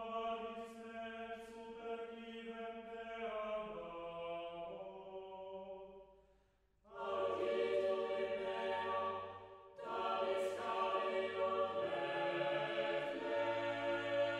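Slow sung chant: voices holding long notes that step slowly from pitch to pitch, breaking off about six seconds in and returning a second later, fuller.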